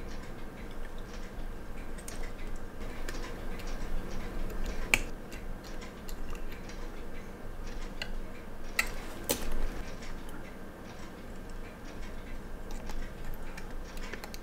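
Small, scattered clicks and taps of metal tools and fingertips on a quartz watch movement while its battery is being changed, with a few sharper clicks about five and nine seconds in.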